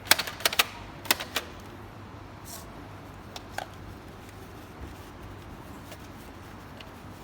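Parts of an LG stick vacuum being handled while its filter is cleaned by hand: a quick run of sharp clicks and knocks in the first second and a half, then a few lighter clicks.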